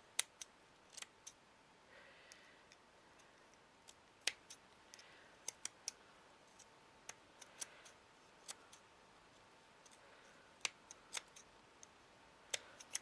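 Scissors snipping and trimming string: a scatter of small, irregular sharp clicks with faint rustling of handled craft materials.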